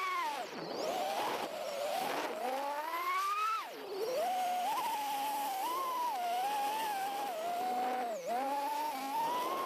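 Diatone GTR349 FPV quadcopter's brushless motors and propellers whining, heard from the camera strapped to the quad. The pitch climbs and falls with the throttle, turns rough and noisy in the first couple of seconds, and drops sharply about three and a half seconds in before rising again.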